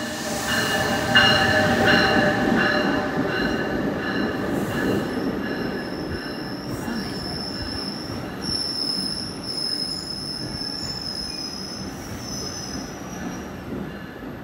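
NJ Transit train of multilevel coaches hauled by an ALP-46 electric locomotive, rolling past and slowing as it pulls in to stop. Its rumble fades gradually. From about five seconds in until near the end there is a high, steady squeal as it brakes.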